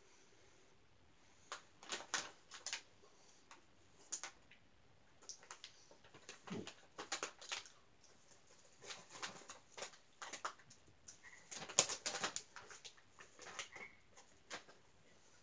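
Faint scattered crackling and rustling of a plastic snack packet being handled, in short clusters, loudest about twelve seconds in.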